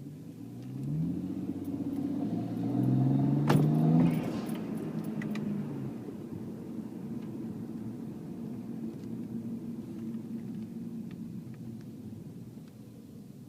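BMW 335i's turbocharged inline-six rising in revs for about four seconds, with a sharp click near the top. It then drops back to a steady idle.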